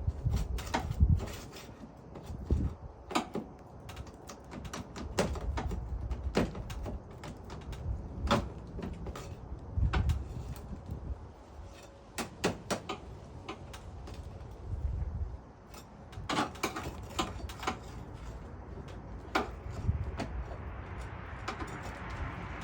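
Flat bar prying under roof shingles to work a nail loose: irregular sharp clicks and knocks of metal against shingle and nail, with scraping.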